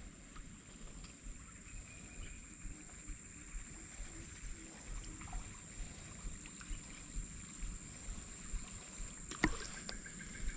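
Quiet waterside background: a steady high thin whine with faint water trickling and soft small clicks, and a sharp click near the end.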